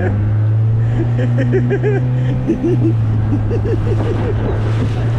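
A small boat's motor running steadily underway, a constant low hum with a brief wobble about halfway through, with voices talking over it.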